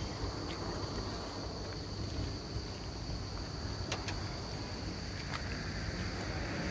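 Insects droning in one steady high-pitched note over a low, even rumble, with a couple of faint clicks around the middle.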